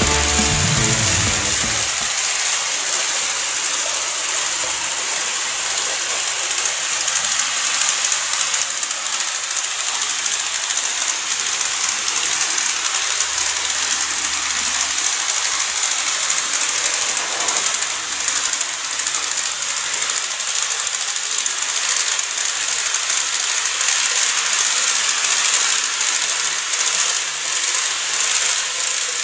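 KATO N-gauge 185 series model trains running on layout track: a steady, high-pitched whir of the motor and small wheels rolling on the rails.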